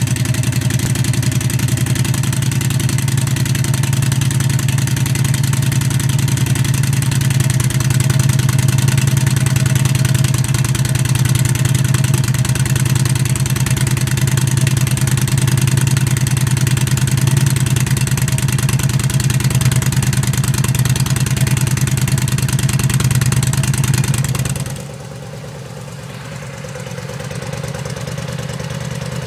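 Yamaha V Star 950's air-cooled V-twin idling steadily through its exhaust. About 25 seconds in, the sound cuts to another V Star 950 idling more quietly.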